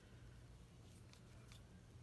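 Near silence with a low hum, and a few faint clicks and light rustles of hands handling a small plastic figure and pressing its ponytail parts into place.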